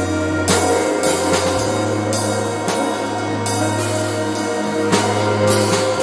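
Instrumental electronic music played on synthesizers: a steady drum beat over held bass notes and sustained chords, the bass shifting to a new note about a second and a half in and again near the end.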